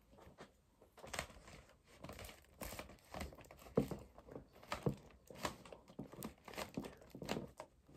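Plastic CD jewel cases being handled and counted one after another: a dozen or so faint clacks and rustles, roughly one every half second to a second.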